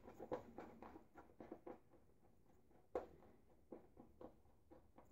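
Faint quick squishing strokes of a badger shaving brush working Williams mug soap into lather in a bowl, several a second at first and thinning out, with one sharper knock about three seconds in.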